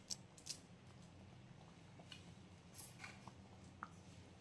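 Near silence with a few faint soft taps as chopped coconut pieces drop into suji halwa in a steel kadhai, over a low steady hum.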